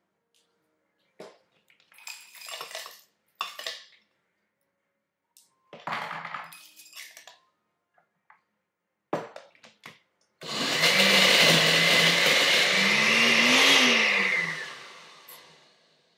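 A few short clatters and knocks, then a countertop blender runs for about four seconds crushing ice. Its motor note dips and rises under the load before it winds down.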